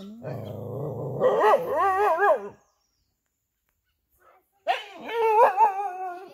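A dog growling low, then whining in a high, wavering voice. After a pause of about two seconds it whines again.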